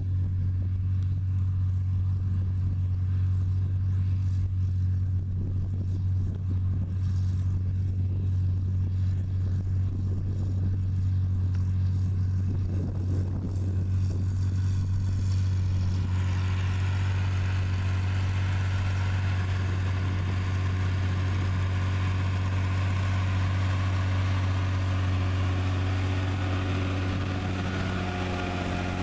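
John Deere track tractor's diesel engine running steadily under load as it pulls an AerWay tillage tool, a deep even drone. About halfway through, a brighter, higher-pitched noise joins the drone.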